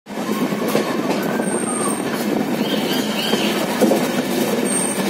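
Karwar Express passenger train running at speed, heard from an open coach doorway: a steady rattle and rumble of wheels on the rails. Thin wheel squeals rise and fall over it, about a second in and again around three seconds in.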